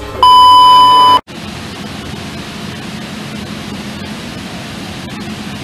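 A loud, steady electronic beep lasting about a second, which cuts off abruptly. A steady background hiss with a low hum follows.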